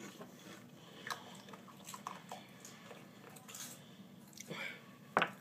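Faint scattered clicks and light rustles of small objects being handled, with a slightly louder click near the end.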